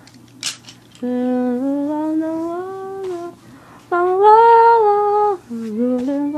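A woman humming a slow tune in long held notes, the phrases gliding gently up and down in pitch, with a brief click about half a second in.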